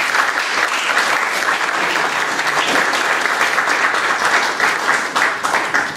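Audience applauding, a steady clapping from a seated crowd that fades out near the end.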